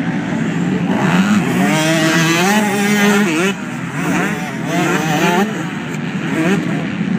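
Motocross bikes' engines revving hard over the dirt jumps, more than one bike at once. The pitch climbs, drops sharply about halfway through as the throttle is chopped, then climbs again.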